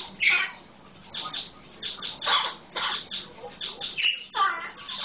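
Male Solomon Island eclectus parrot giving a quick run of short squawks and chatters in imitation of a red-lored amazon's calls, with a call that falls in pitch near the end.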